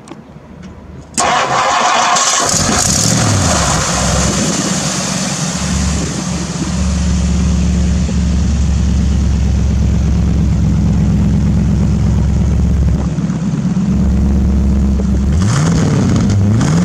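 1962 Mercury Monterey's 352 cubic-inch V8 starting about a second in and settling into a steady run. Near the end the pitch rises and falls a few times as it is revved.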